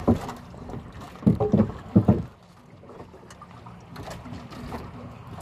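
A few heavy knocks and thumps against a wooden boat, then lighter knocks over steady water and wind noise, as a spear-fishing line is hauled in by hand over the side.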